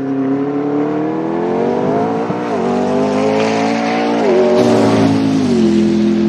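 McLaren P1 GTR's twin-turbo V8 accelerating hard, its note rising and dropping sharply at two quick upshifts, about two and four seconds in. Near the end it falls to a steady, lower note.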